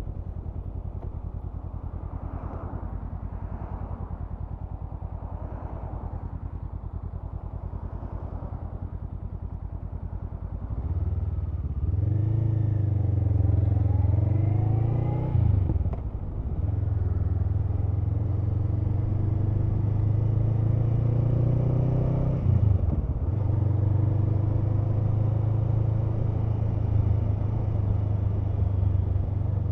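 Honda CMX500 Rebel's 471 cc parallel-twin engine ticking over steadily, then pulling away about ten seconds in, the pitch rising under acceleration. It drops briefly at two gear changes, about sixteen and twenty-three seconds in, then settles into a steady cruise.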